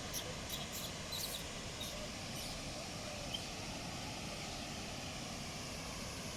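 Steady rushing roar of the Ouzoud waterfall, with a few short high squeaks in the first couple of seconds.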